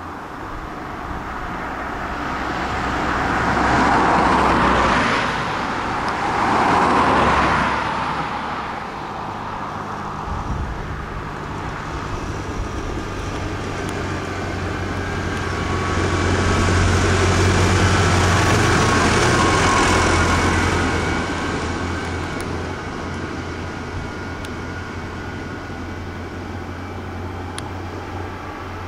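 Road traffic on a country lane. Two cars go by in quick succession with tyre and engine noise, then a tractor's diesel engine runs with a steady low drone as it passes, loudest about midway.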